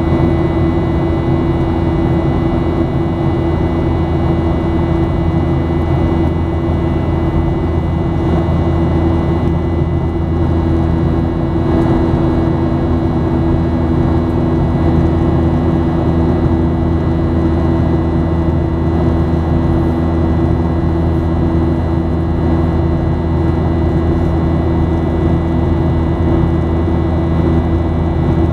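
Steady cabin drone of a Boeing 737-800 in flight, heard from a window seat beside the wing: the CFM56-7B turbofan engines hum with several steady tones over an even rush of air.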